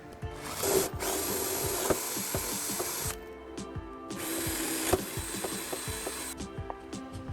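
A power tool runs in two bursts, the first about three seconds and the second about two, over light background music.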